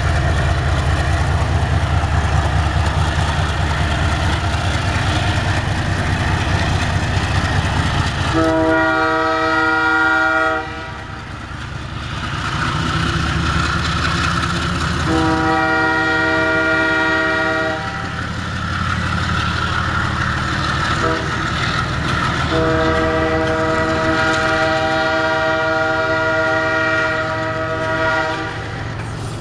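Diesel locomotives rumble as they pass, then the lead GE ES43BBI locomotive's chime air horn sounds long, long, short, long, the level-crossing signal. The last blast is held about six seconds.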